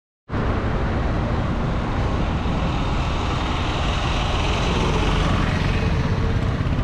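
Steady road traffic noise, dense and rumbling, starting abruptly a moment in.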